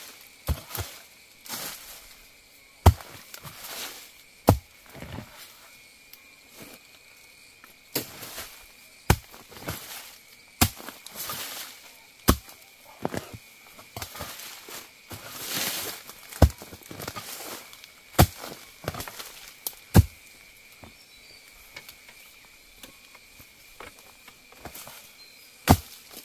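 Sharp chopping blows of a blade cutting wild bamboo shoots, about nine at irregular intervals of one to five seconds. Leaves and undergrowth rustle between the blows.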